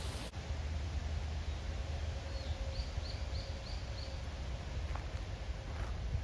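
Low outdoor rumble with a small bird calling a quick run of five short chirps in the middle, about three a second.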